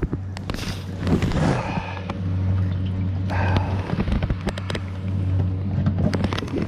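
A steady low hum on the boat, with scattered sharp clicks and knocks of handling and a short rush of water about three seconds in.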